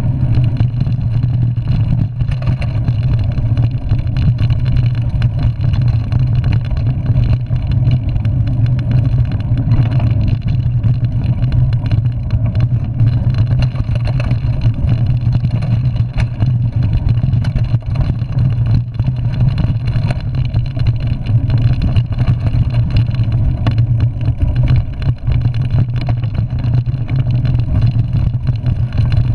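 Mountain bike ridden fast down a dirt singletrack, heard from a handlebar-mounted camera: a loud, steady rumble of wind and tyre noise on the microphone with constant small knocks and rattles from the bike over the rough trail.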